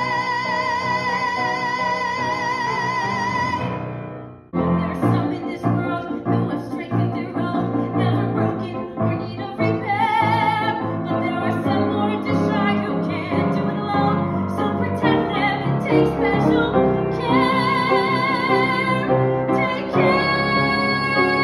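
A woman's voice holds one long high note with vibrato over instrumental accompaniment. It stops about four seconds in, and a new song starts: accompaniment with her singing phrases and several more held notes with vibrato.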